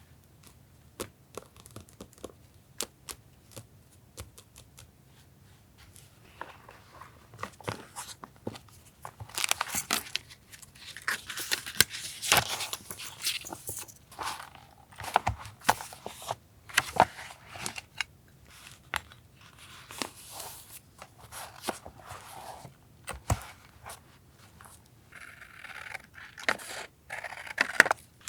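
Paper being handled on a desk: scattered light taps and clicks at first, then denser rustling and crinkling with short tearing sounds from about nine seconds in.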